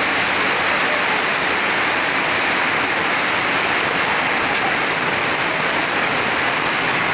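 Heavy downpour: a steady, dense hiss of rain falling on paving, with water pouring down from a roof.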